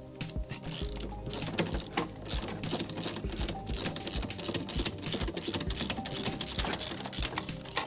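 Socket ratchet clicking rapidly as a 5/8-inch socket backs out the bolts holding the seatbelt hardware.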